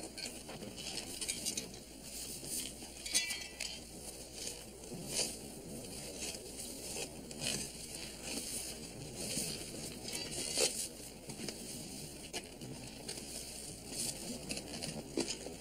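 Digging in sandy, gravelly ground: tools scraping and striking the earth in irregular strokes, over a steady hiss.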